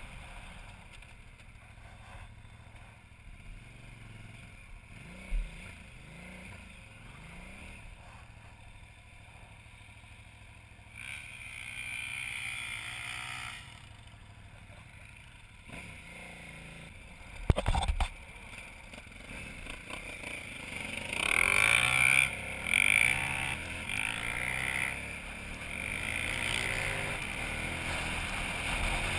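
KTM 990 Adventure's V-twin engine running under way on dirt, quiet for most of the stretch, then revving harder and louder over roughly the last third. A couple of sharp knocks come a little past the middle.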